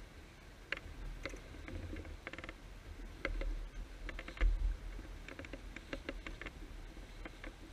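Sailboat sheet winch clicking in irregular bursts as a line is hauled in, over a low wind rumble on the microphone.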